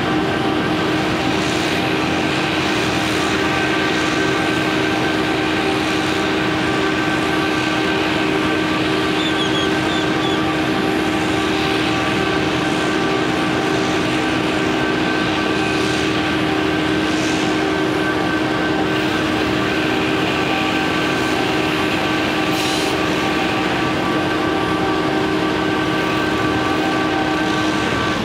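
Heavy construction machinery running: a steady mechanical drone with several held humming tones over a noisy rumble, unchanging throughout.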